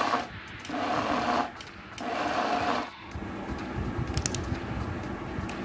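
Electric blender pulsed on and off in bursts of about a second each, three times, chopping up drained chhana (fresh curd cheese). After the third burst it falls quieter, with a low hum and a few light clicks.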